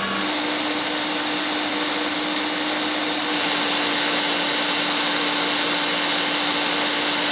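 Food processor motor running steadily at speed with a constant hum, whipping garlic as oil is drizzled in to emulsify it into toum.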